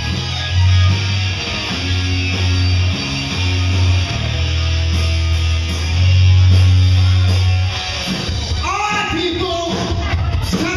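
Hard rock band playing live and loud: electric guitar, drums and long held bass notes. In the last couple of seconds a voice sings out over the band.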